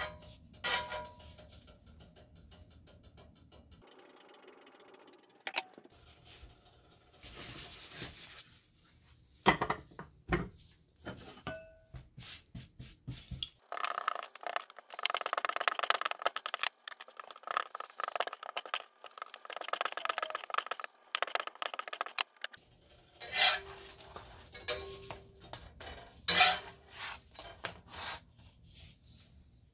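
Kitchen handling sounds: a metal spatula clinking and scraping against a cast-iron griddle pan as a flatbread is turned and pressed, and hands patting and pressing dough on a floured countertop. Scattered sharp clicks, with a longer stretch of rubbing in the middle.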